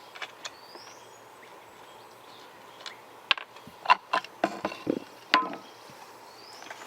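Sharp clicks and knocks of metal chainsaw parts and tools being handled. A few short ringing metallic clinks fall between about three and five and a half seconds in.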